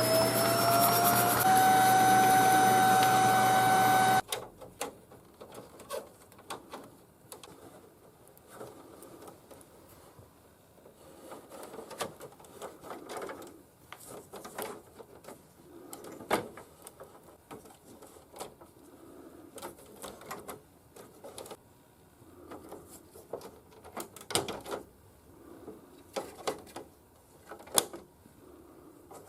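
A vacuum cleaner's motor whines, rising in pitch and then holding steady, and cuts off suddenly about four seconds in. After that come scattered light clicks and knocks of plastic parts being handled, such as an air-conditioner filter and panel.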